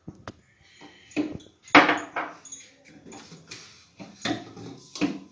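Steel spoon scooping and scraping flour into a plastic mixing bowl, with several short knocks and clinks of spoon against bowl.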